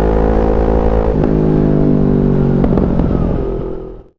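CFMoto 400NK motorcycle engine running while riding, a steady engine note with two short breaks, about a second in and just under three seconds in. It fades out near the end.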